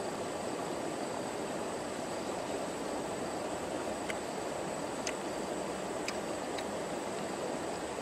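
Steady outdoor background hiss with a thin high tone, and a few short sharp ticks about halfway through as a small cooked bird is torn apart and chewed by hand.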